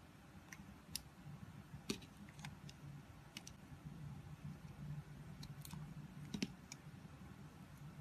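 Snap-off utility knife blade shaving curls from a bar of soap: faint, irregular crisp clicks and crackles as the soap breaks away under the blade, two of them sharper about two seconds and six seconds in, over a low steady hum.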